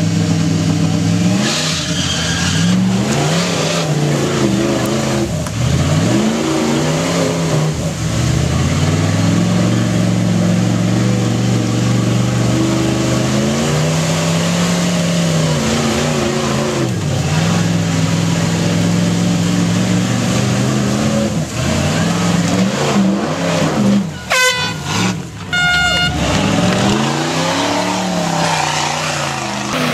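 Engine of a lifted 1979 Ford Bronco competition truck revving up and down repeatedly as it climbs obstacles, holding high revs for several seconds at a time before easing off.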